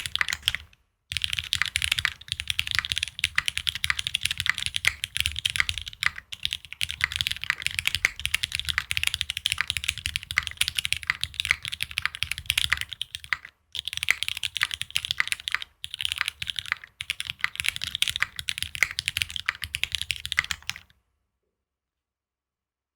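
Continuous fast typing on a Neson N6 mechanical keyboard with Cherry Hyperglide Black linear switches in an aluminium plate and GMK Muted / Mr Sleeves keycaps: dense key clacks with a deep low thock under them, broken by a few short pauses, stopping abruptly near the end.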